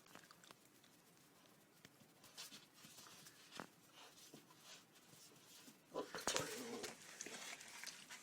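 Puppy scrabbling at something out of reach: faint scattered clicks and scrapes, with a louder scuffle about six seconds in.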